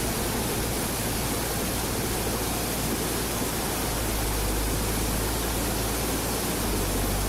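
Steady rushing water, with a low steady hum underneath that grows a little stronger about halfway through.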